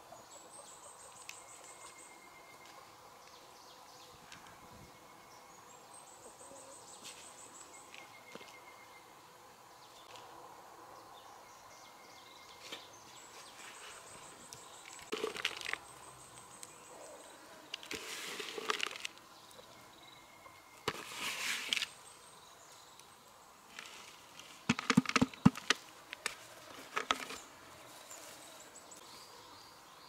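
Insects chirping in high, repeating trills. Over them come several rustling scrapes and then a quick cluster of knocks in the second half, which are the loudest sounds: soil and tools being worked while planting holes are backfilled.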